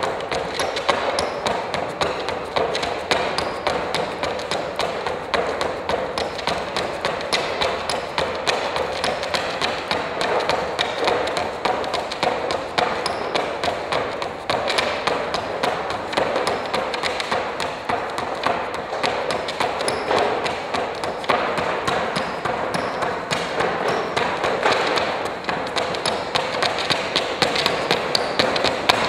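Live performance soundscape of dense, continuous rapid tapping and clicking, with no let-up.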